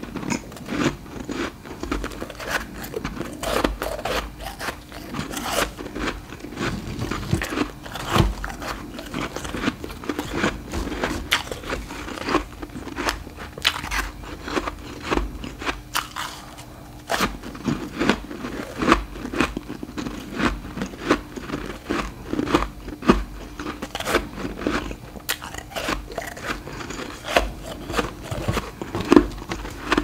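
Refrozen humidifier frost being bitten and chewed: a dense run of sharp, irregular crunches, with a short lull about halfway through.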